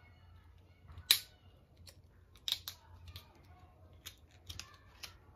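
A series of short, sharp clicks and taps, one loud snap about a second in, then several lighter ones spaced irregularly, like hands handling a device and its cable.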